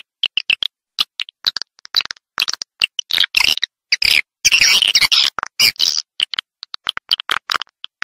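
Swiftlets twittering: rapid runs of short, high chirps and clicks, broken again and again by sudden silences. It is a swiftlet lure call of the kind played to draw the birds into a swiftlet nesting house.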